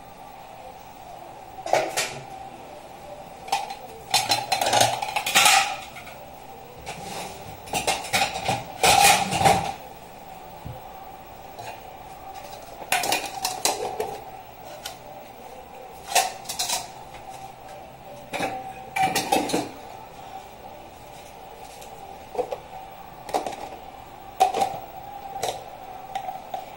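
Metal pot lids and bowls clanking and clattering in irregular bursts as washed dishes are handled and stacked, over a steady faint hum.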